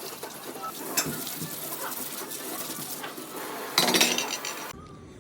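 Food sizzling in a frying pan while a metal utensil stirs it, clinking and scraping against the pan. It gets louder about four seconds in, then cuts off abruptly.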